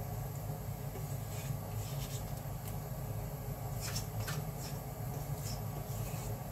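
Silicone spatula scraping sticky minced-meat paste from a stainless steel bowl, a few soft scrapes and taps, the clearest about four seconds in, over a steady low hum.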